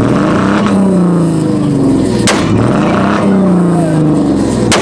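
A performance car engine revved over and over, its pitch jumping up and falling back about once a second. Two sharp exhaust backfire bangs come through, about two seconds in and near the end.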